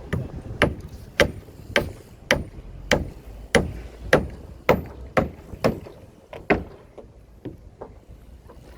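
A series of sharp knocks, about two a second and evenly spaced, some fourteen strong strikes, trailing off into a few fainter ones near the end.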